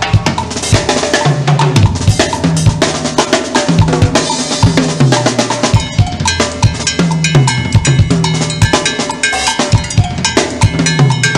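A drum kit played in a fast, dense solo: quick strokes on snare and toms over the bass drum, with short low held notes underneath. From about halfway through, ringing bell-like metal strikes join in.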